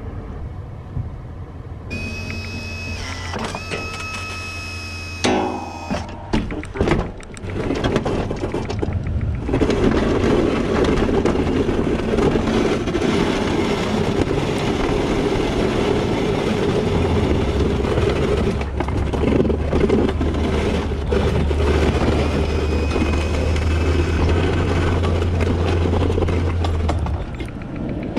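ATV engine running as it pushes a V-plow blade through fresh snow: a loud, steady drone from about ten seconds in, deepening in the second half. Before that, a steady high tone, then a few knocks.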